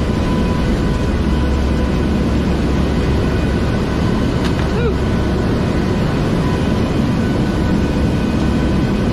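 Steady drone of a four-engine turboprop hurricane-hunter aircraft heard inside the cabin, a deep hum with a few faint steady tones over it. A brief squeak slides in pitch about five seconds in.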